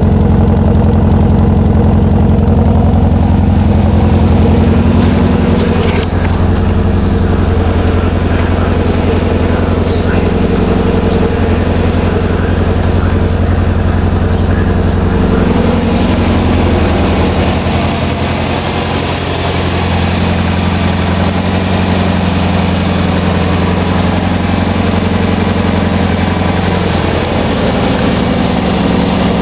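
Nissan SR20DET turbocharged 2.0-litre inline-four idling with a misfire. The idle note shifts a little around the middle.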